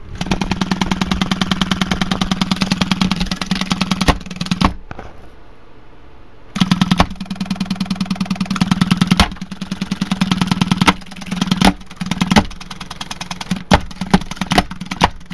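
Crescendo midrange speaker with a slashed, shredded cone, still being driven and putting out a loud, harsh, rapidly pulsing buzz centred low around 200 Hz. It cuts out for about two seconds after the first four, comes back, and then sputters in short separate bursts near the end, like a driver on the point of failing.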